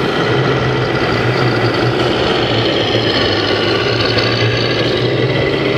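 Radio-controlled scale truck running: a steady, engine-like hum with a higher whine laid over it.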